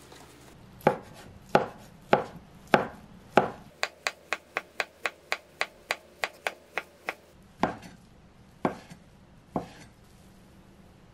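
Chef's knife slicing a rolled egg crepe into thin strips on a wooden cutting board, the blade knocking the board with each cut. Five slower cuts come first, then a quick run of about four cuts a second, then three more spaced about a second apart.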